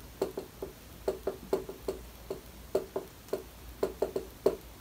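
Dry-erase marker tapping and scraping on a whiteboard while writing Korean letters: a string of short, irregularly spaced taps, one per pen stroke.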